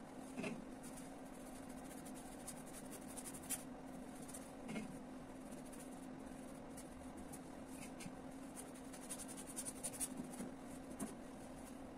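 Faint scratching and dabbing of a paintbrush on a stretched canvas, in irregular clusters of short strokes, with a few soft knocks, over a steady low hum.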